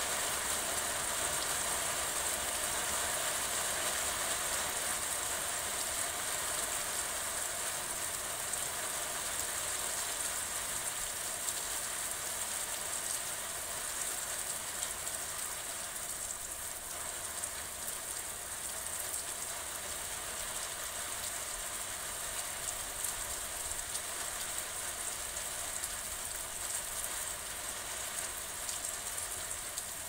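Rain falling steadily, a dense even hiss of drops that eases a little about halfway through.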